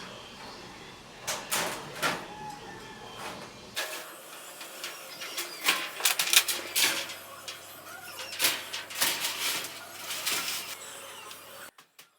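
Repeated sharp metallic clicks and clanks from work on thin sheet-metal roofing, coming in quick clusters from about four seconds in.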